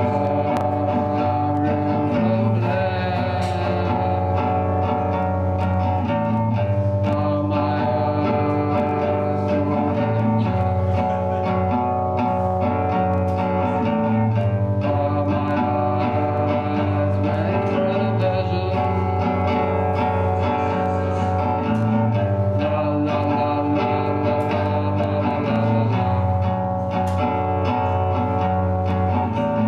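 A live band playing a song: guitar with a man singing.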